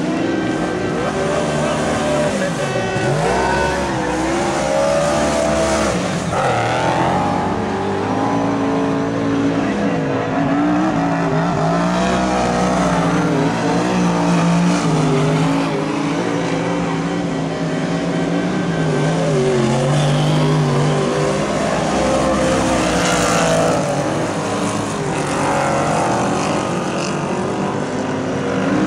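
Several stock car engines racing around a clay oval, each revving up and dropping off as the cars accelerate and back off, their pitches overlapping and shifting.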